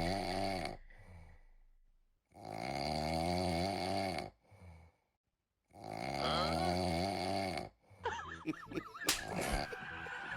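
A person snoring loudly in long, drawn-out snores, three of them with pauses between. Near the end the snoring gives way to a jumble of clicks and short squeaky sweeps.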